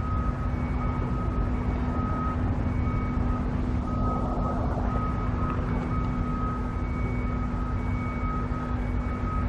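Construction machine engine running steadily, with a warning alarm beeping over it about once a second.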